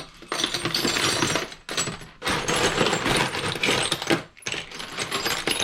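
Loose steel nuts and bolts clattering and jingling as hands rummage through a bin of hardware, a dense jangle with two short pauses.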